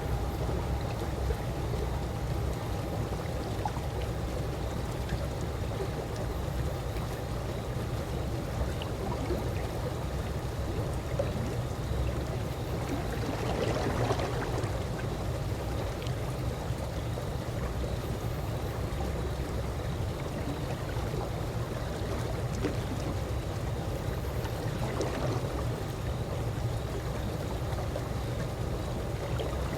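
Calm swimming-pool water lapping and gurgling steadily over a low rumble, with a slightly louder splash of water about halfway through and a smaller one near the end.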